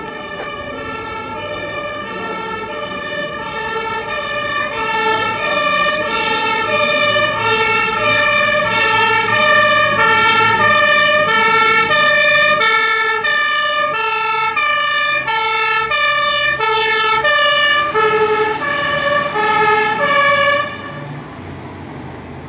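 Fire engine's German two-tone siren (Martinshorn) alternating between a low and a high note, each held about two-thirds of a second. It grows steadily louder as the truck approaches and stops abruptly near the end, with the truck's engine running underneath.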